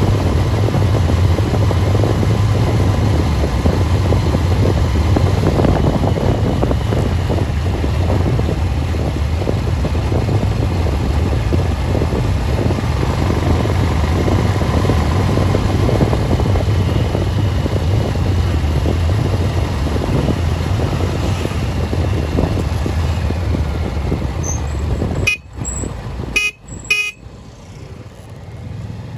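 Road vehicle running steadily along the road: a continuous low engine hum with rushing wind noise. About 25 seconds in, the sound drops sharply and breaks up.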